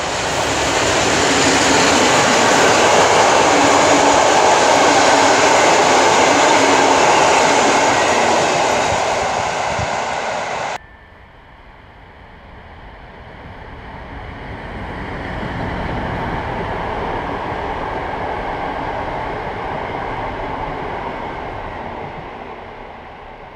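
EU07 electric locomotive and its passenger coaches passing at speed, wheels running on the rails. The loud pass cuts off suddenly about ten seconds in. The train is then heard again, quieter, swelling as the coaches go by and fading near the end.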